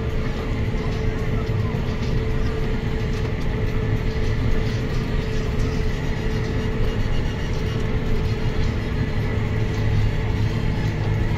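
Tractor engine running steadily while mowing grass, heard from inside the cab as an even drone, a little stronger near the end.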